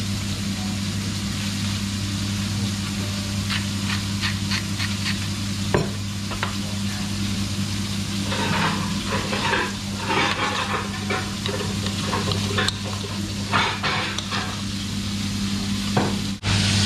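A spoon stirring and mashing guacamole in a mixing bowl, with irregular scrapes and clicks against the bowl that grow busier about halfway through. Under it runs a steady low hum and hiss.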